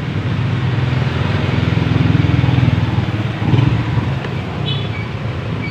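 A steady low engine-like rumble, with a brief faint high chirp near the end.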